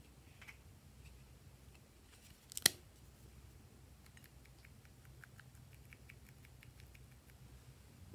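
A squeeze bottle's nozzle dabs dots onto soft white slime, making a run of small, faint ticks about three or four a second in the second half. Earlier, a little over two and a half seconds in, comes a single sharp click, the loudest sound.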